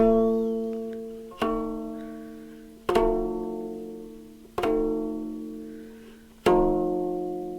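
A plucked string instrument from Ethiopia strummed five times, at even intervals of about a second and a half; each chord of several ringing notes fades away before the next.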